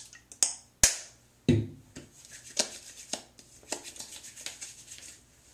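Close handling sounds from a bottle of jojoba oil being used: a few sharp clicks and a knock in the first second and a half, then a run of lighter, quicker clicks and rubbing as the oil is worked into the hands.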